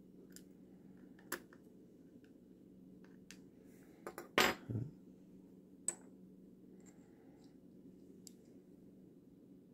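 Small metal clicks and taps of brass lock parts and steel tweezers being handled and set down over a pin tray, with one louder clatter about four and a half seconds in. A steady low hum lies under it.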